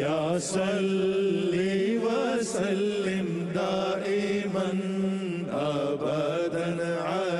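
Devotional Islamic vocal music (a naat or nasheed): a voice singing a slow melody with bending, drawn-out notes over a steady low hummed drone.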